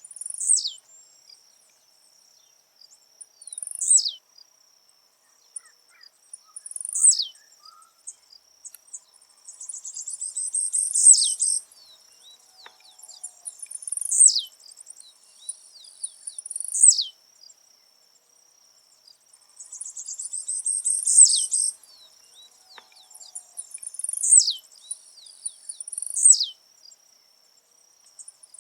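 Blue-black grassquit (tiziu) singing its short song over and over, about every three seconds: a sharp high note that falls steeply. Twice it is led in by a longer buzzy twitter. A steady high insect trill runs behind.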